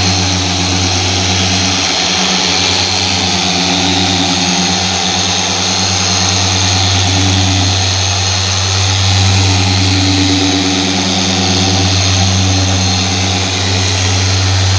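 Random orbital car polisher running at its top compound speed, working cutting compound into the paint on a paint-correction pass. A steady hum with a higher whine above it, swelling slightly now and then as the pad is pressed and moved.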